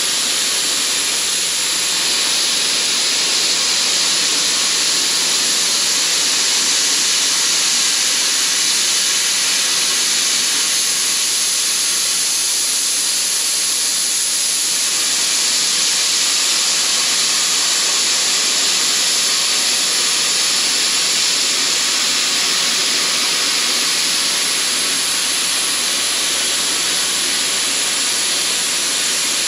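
Hypertherm Powermax 600 air plasma cutter cutting a round hole through quarter-inch steel plate: a loud, steady hiss of the torch's arc and air stream that runs without a break.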